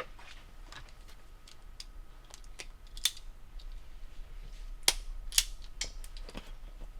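Irregular sharp clicks and snips from hand work on wiring and cable labels, with a few louder snaps about three seconds in and twice around five seconds in.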